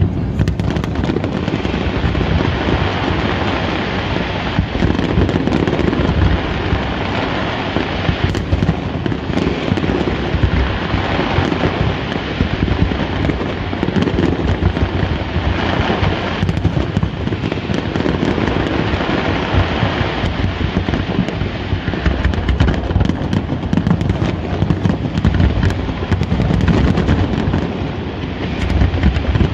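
Fireworks display: a dense, continuous barrage of overlapping bangs and crackles from aerial shells and fountains, loud and without a pause.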